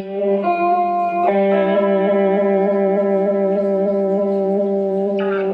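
Clean electric guitar (Ibanez RG 750 through a Vox AC4TV amp) played through a Behringer 69 Vibe pedal in vibrato mode: long held notes with a slight regular wavering in pitch. It changes notes twice near the start and a new note is picked near the end.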